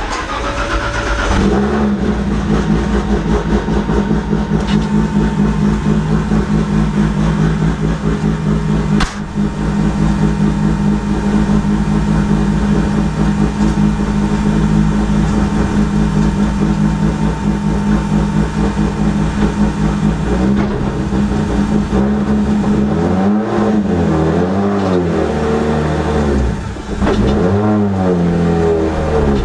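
Nissan Skyline R32 GT-R's RB28 straight-six engine starting, settling into a steady idle, then blipped up and back down several times near the end.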